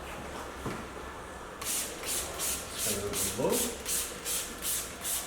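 Hand trigger spray bottle spraying soapy solution onto a car body: a quick run of about a dozen short sprays, roughly three a second, starting about a second and a half in.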